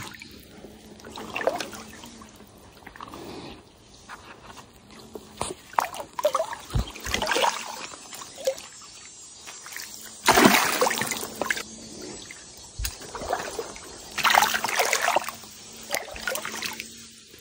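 Water splashing and sloshing in repeated bursts as a large hooked trairão (wolf fish) thrashes in a shallow stream while being handled; the loudest burst comes about ten seconds in.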